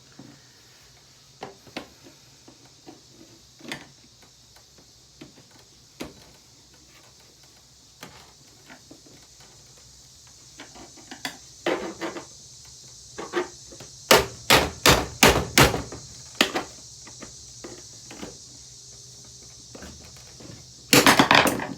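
Knocks and blows on a Hoover vacuum cleaner as it is taken apart: scattered single knocks and clicks, then a quick run of about seven hard blows a little past halfway, and another loud burst of blows near the end.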